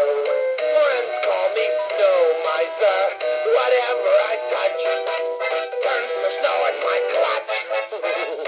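Animated spinning snowman toy playing a Christmas song with singing through its small built-in speaker; the sound is thin and tinny, with no bass at all.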